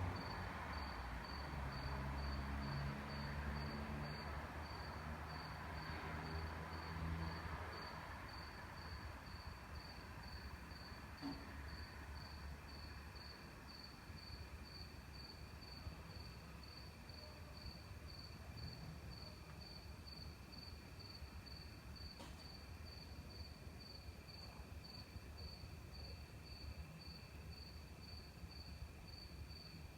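A cricket chirping steadily, about two chirps a second, at night. A low hum fades away over the first several seconds.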